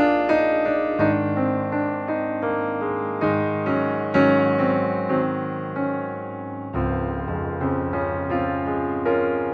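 Background piano music, a steady flow of notes over a held bass note that changes twice.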